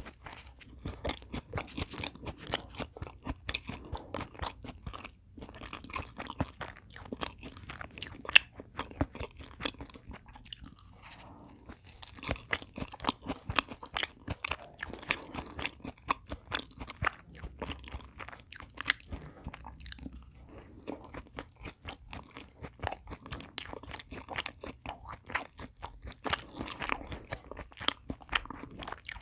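Close-miked eating of a chocolate choux pastry (cream puff): crisp, crackly crunches of the cocoa shell and wet chewing of the chocolate cream filling, going on steadily with a brief pause about five seconds in.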